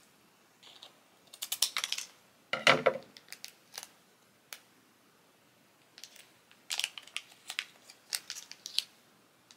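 Scissors snipping into a small foil packet, then the packet crinkling as it is pulled open by hand, in scattered bursts of short crackles and snips.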